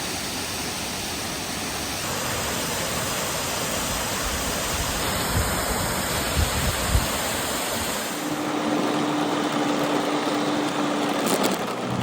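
Waterfall: a steady rush of falling water, with a few low thumps about halfway through and a faint steady hum in the last few seconds.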